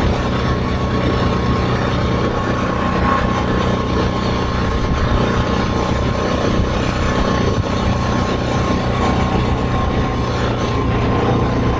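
ATV engine running at a steady cruising speed, with road and wind noise and a thin, steady high whine throughout.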